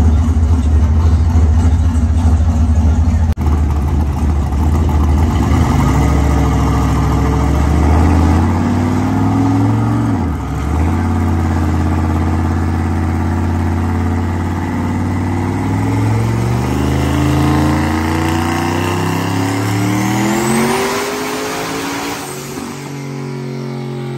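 Turbocharged Chevrolet Silverado pickup's engine making a full-throttle pull on a chassis dyno. It starts with a loud low rumble, then the revs climb again and again through the gears. Near the end a high whine rises, and about 22 seconds in the throttle is lifted and the sound drops away.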